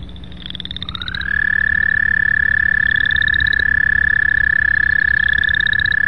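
American toad's long, steady musical trill. It starts about a second in, slides up briefly in pitch, then holds one even pitch. Shorter, higher rising trills repeat behind it about every two and a half seconds.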